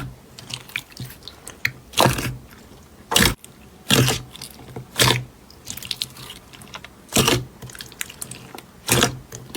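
Slime being squished and poked by hand: sharp, crackly pops about once a second, with small sticky clicks in between.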